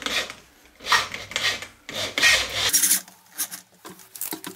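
A drill bit cutting into an old press-fit ball oiler to drill it out. It makes a few short rasping cuts, then from near three seconds a steadier low hum with fast chattering clicks.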